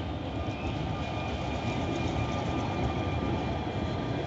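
Vintage electric tram of the Sóller line and its open trailer cars rolling past on street rails: a steady rumble of wheels on track with faint steady high tones above it, growing louder to a peak about three seconds in as the cars pass close by.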